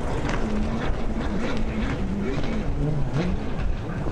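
Watercraft engines running, their pitch rising and falling as the throttle is worked, over steady wind noise on the microphone.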